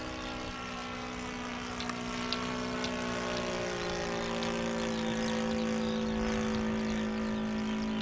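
Engine of a radio-controlled model de Havilland Gipsy Moth biplane running steadily in flight. It grows louder toward the middle as the plane passes, and its pitch dips slightly about four seconds in.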